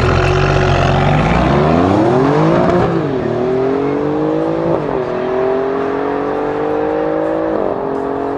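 Alfa Romeo Giulia Quadrifoglio's 2.9-litre twin-turbo V6, fitted with a Ragazzon exhaust, and a second car launching together off a drag-strip start line at full throttle. The engine pitch climbs and drops sharply at upshifts about three seconds in, about five seconds in and near the end.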